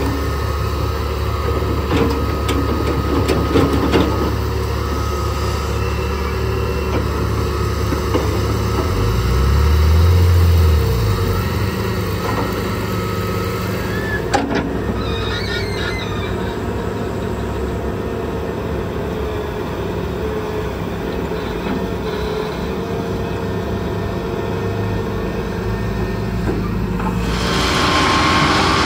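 Heavy excavator's diesel engine running steadily under work, its low note swelling for a couple of seconds about a third of the way in, with a few sharp clicks and knocks around the middle and a broad rush of noise near the end.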